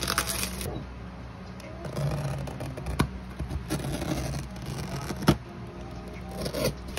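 Bubble wrap and a taped paper parcel rustling and crinkling as they are handled and unwrapped, then scissors working at the packing tape. A sharp click comes about three seconds in, and another about five seconds in.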